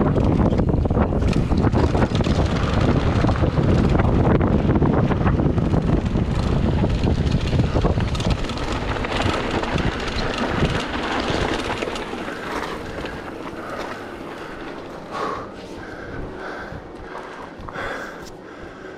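Wind rushing over the camera microphone with mountain-bike tyres rolling on a dirt trail during a fast descent. The rush fades over the last third as the bike slows on a gravel lane.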